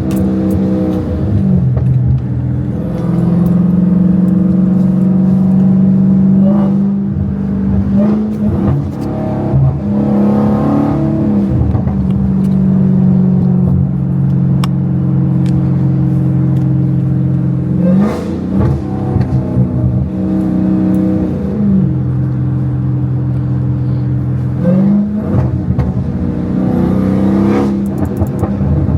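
Dodge Hellcat's supercharged 6.2-litre HEMI V8 with no catalytic converters, running loud under way. The pitch holds steady for long stretches, then drops and climbs again several times as the car shifts and revs.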